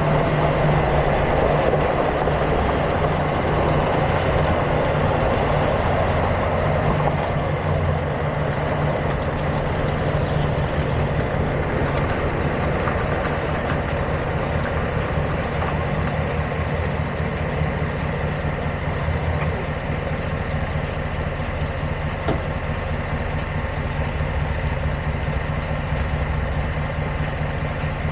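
An engine idling steadily, with a few brief pops, the sharpest about three-quarters of the way through.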